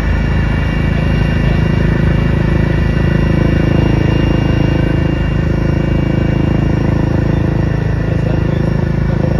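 Helicopter engine and rotors heard from inside the cabin: a loud, steady drone with a rapid low beat of the blades and a steady high whine.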